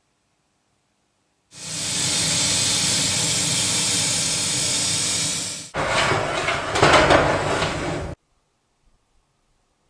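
A workshop tool running with a steady loud hiss over a low hum for about four seconds. It changes to a rougher, louder stretch of noise that cuts off abruptly.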